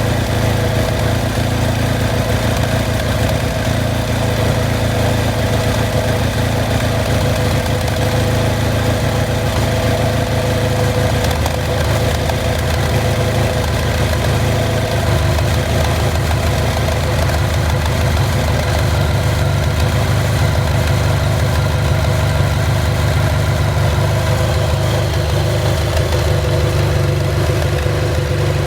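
Honda VFR1200F's V4 engine idling steadily through its exhaust, the low idle note shifting slightly about halfway through.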